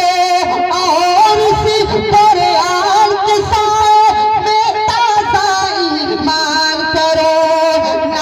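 A man singing a naat, a devotional song, into a microphone over a PA. The melody moves through long held notes with wavering, ornamented bends, without a break.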